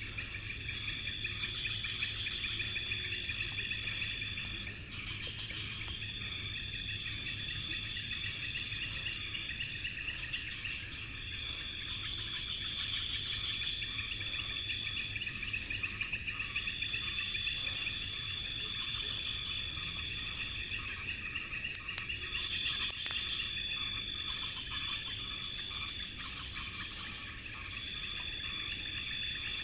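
Night insect chorus in tropical forest: a steady high trill, with a lower chirring chorus that swells and stops every few seconds. Two sharp clicks sound about two-thirds of the way through.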